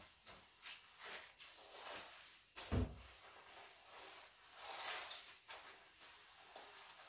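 String mop swishing over a tiled floor in short, scattered strokes, with a longer wipe about five seconds in. One sharp knock with a dull thud comes about three seconds in, the loudest sound.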